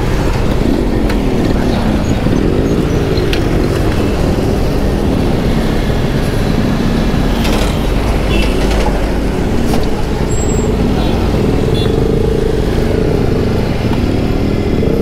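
Motorcycle engines running in road traffic, their pitch rising and falling with the throttle over a steady low rumble.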